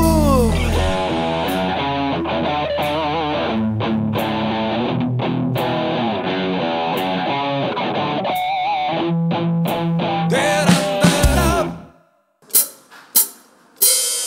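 Worship band playing an instrumental passage: electric guitar lead with bent, wavering notes over drums and bass, after a held chord slides down in pitch in the first second. The music stops about 12 seconds in, followed by a few short sharp hits.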